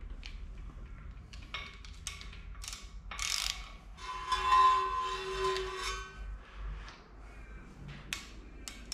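Socket ratchet on the crankshaft bolt of a bare V6 engine block, clicking as the engine is turned over by hand with a degree wheel fitted. About four seconds in comes a louder, ringing metallic scrape lasting roughly two seconds, and near the end the ratchet clicks quickly and evenly again.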